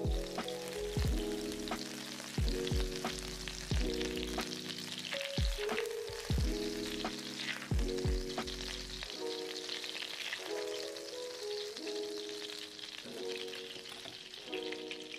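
Butter sizzling and bubbling as it melts in a nonstick frying pan, stirred now and then with a silicone spatula. Background music with a steady beat plays over it.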